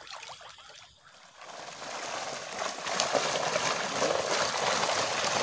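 Water splashing as men wade and haul a net with Nile tilapia thrashing in it. The opening second is faint, then the splashing builds about a second and a half in.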